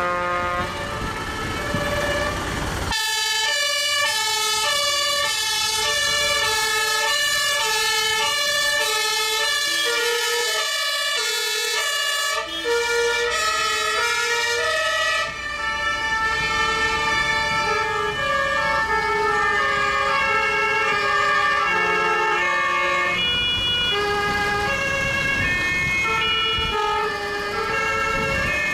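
Several fire engines' two-tone sirens sounding at once, their alternating tones overlapping at different pitches and rates, over the low running of the trucks' engines.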